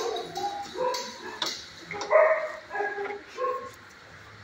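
A dog yipping and barking in a string of about six short pitched calls, the loudest a little past two seconds in.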